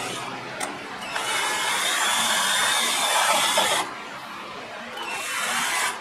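Handheld power drill boring through a printed circuit board in two runs: a steady whine of about three seconds starting about a second in, then a shorter burst near the end.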